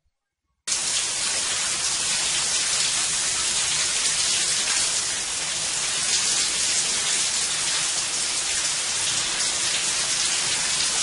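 Shower running: a steady spray of water that starts suddenly just under a second in.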